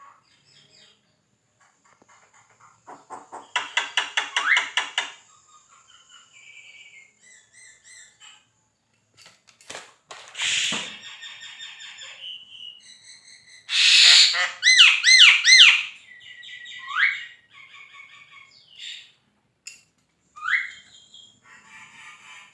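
Javan myna singing a varied, chattering song: fast rattling runs, short rising whistles and harsh squawky calls. The loudest bursts come about four seconds in and again around fourteen to sixteen seconds in.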